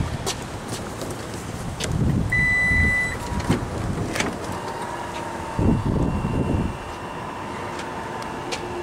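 2019 Toyota RAV4 power liftgate opening: a short warning beep, then the liftgate motor's steady whine for about five seconds. A few low thumps sound along the way.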